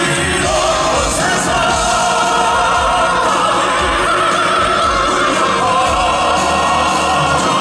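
Male classical-crossover vocal group singing in operatic style over instrumental accompaniment, with long held notes.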